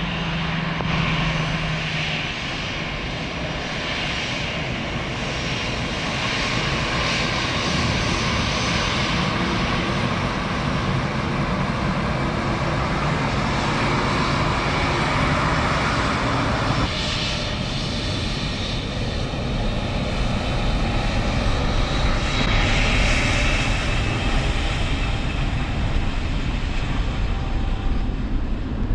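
An airliner's engines running as it taxis past close by: a steady rush of noise with a faint high whine, its tone shifting partway through.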